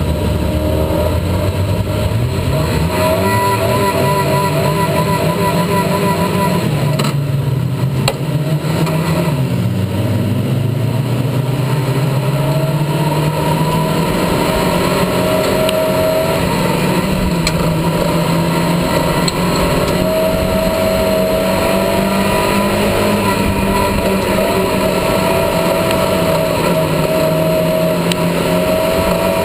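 Ministock speedway car's engine running hard while racing, heard from inside its own cockpit. The engine note rises and falls with the throttle, dipping about ten seconds in and climbing back.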